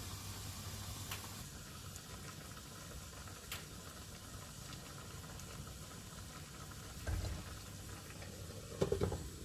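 Pot of beef strips and bell peppers in gravy coming back to a boil, a steady soft bubbling with a few small pops. Two brief low thumps, about seven and nine seconds in, are the loudest sounds.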